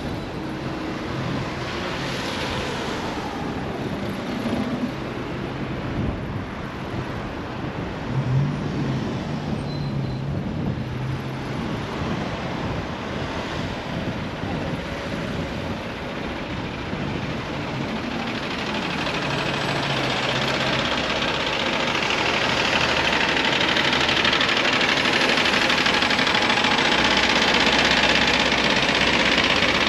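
City road traffic heard from a bicycle: car and bus engines running close by, with a rushing noise that swells and grows louder about two-thirds of the way through.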